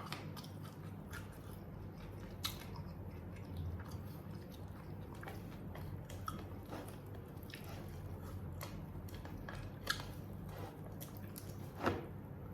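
Close-miked chewing and biting of ayam geprek (smashed fried chicken), with scattered crisp clicks and crunches, the sharpest about ten and twelve seconds in. A steady low hum runs underneath.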